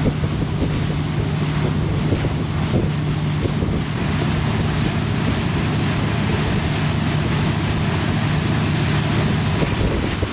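Water taxi's engine running with a steady low drone, over a constant rush of water and wind.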